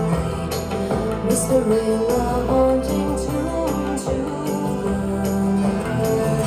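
Music playing through the Harman Kardon SoundSticks 4 satellite-and-subwoofer speaker system: a melody over a steady bass line, with short, light percussion hits.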